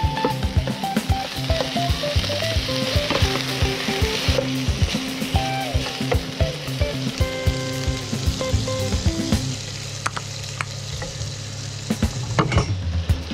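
Pork pieces sizzling as they fry in a nonstick pan, with a spatula repeatedly clicking and scraping against the pan as the meat is stirred.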